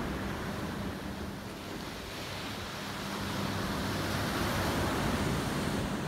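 Steady rushing of surf and wind on the microphone, with a faint low hum underneath for the first few seconds.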